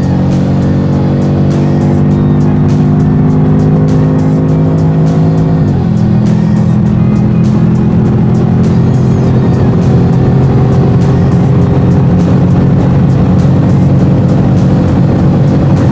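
2015 Ford Mustang GT's 5.0-litre V8 running through a Velocity aftermarket muffler under hard acceleration. The engine note climbs steadily, drops sharply at an upshift about six seconds in, then climbs again in the next gear.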